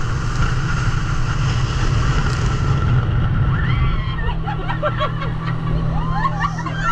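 Motorboat engine running steadily with wind buffeting the microphone. About halfway in, higher wavering calls sound over it.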